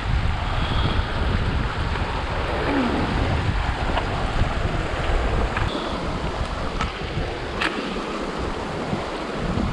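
Wind buffeting the microphone: a steady rushing noise with a gusty low rumble, and a few sharp clicks in the second half.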